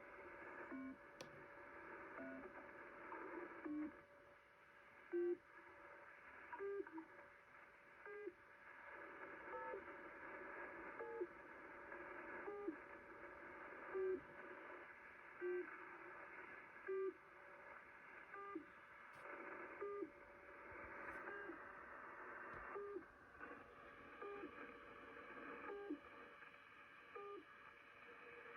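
Shortwave radio reception on 4635 kHz: a short tone pip with a slight bend in pitch repeats about every second and a half over band-limited static and a faint steady tone. It comes from an unidentified oddity station that the listener wonders may be a pirate UVB-76 or a broken buzzer.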